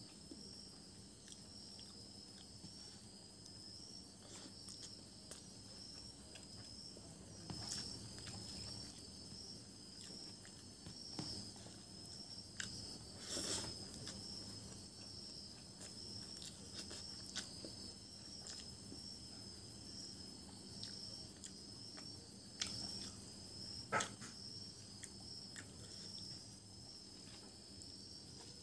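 Insects chirping steadily at night, a continuous pulsing high trill. Over it come soft clicks and smacks of eating rice by hand from a plate, picked up by a lapel microphone; the sharpest click falls late on.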